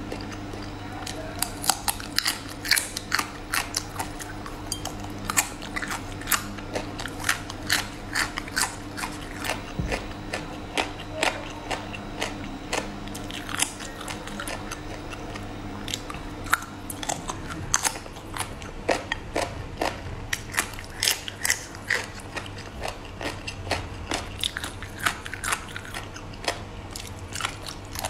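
Close-miked chewing and biting of a braised lu wei assortment: many sharp, irregular wet mouth clicks, one after another. A faint low steady hum in the background stops about two-thirds of the way through.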